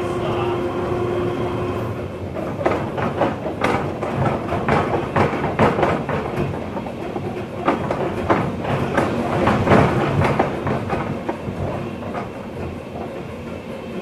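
Train running along the track: a steady hum at first, then from about two seconds in a rapid, irregular clatter of wheels on the rails, loudest about ten seconds in.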